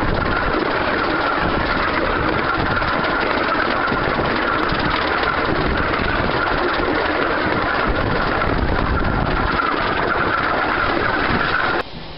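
A 15-inch-gauge 2-6-4T steam tank locomotive and its train running along the line, heard from on board as a loud, steady rush of running noise. It cuts off abruptly near the end, giving way to a quieter scene.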